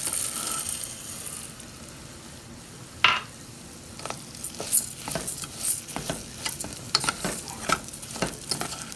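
Raw rice pouring into a hot aluminium pot of grated carrot and onion sizzling in oil, then a metal spoon knocking, scraping and clinking against the pot as the rice is stirred through. This is the rice being fried in the oil with the vegetables before the water goes in.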